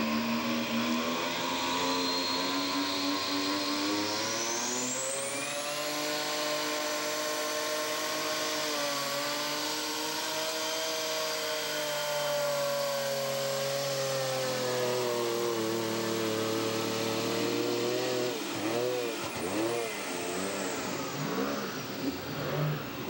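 Mack semi truck's diesel engine at full throttle, pulling a weight sled: the engine note climbs over the first few seconds, with a high whine rising steeply about five seconds in, then holds steady. Near the end the revs rise and fall several times.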